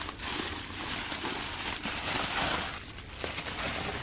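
Plastic bubble wrap crinkling and rustling as it is unwrapped from a wooden decoration, a continuous crackle that eases briefly about three seconds in.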